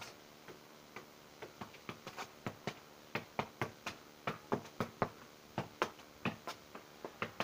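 A football kept up in the air: a quick, fairly even run of light taps, about three to four a second, as the ball is struck again and again.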